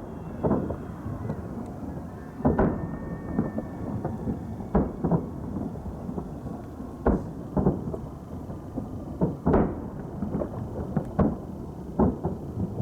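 Distant fireworks shells bursting: a run of irregular booms, roughly a dozen, each with a rumbling echo that rolls on under the next.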